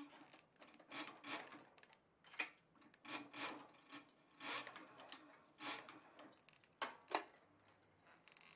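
Cowboy CB-4500 leather sewing machine, run slowly on its servo motor, putting stitches one at a time through several layers of thick saddle leather: about ten separate stitch strokes, unevenly spaced, with quiet between them.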